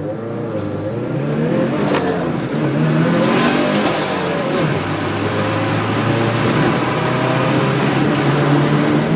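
Subaru WRX race car's turbocharged flat-four engine running under throttle. It comes in suddenly at the start, its pitch wavers up and down for the first few seconds, then holds steadier and climbs slowly.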